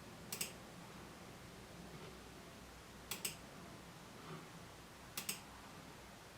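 Computer mouse double-clicking: three quick pairs of sharp clicks, a couple of seconds apart, over faint room hiss.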